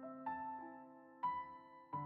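Slow, gentle piano background music: a few notes or chords struck about once a second and left to ring and fade.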